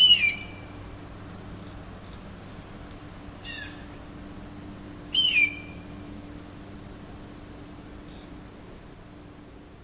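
Hawk screaming: two loud, short calls falling in pitch about five seconds apart, with a fainter call between them, over a steady high-pitched insect drone.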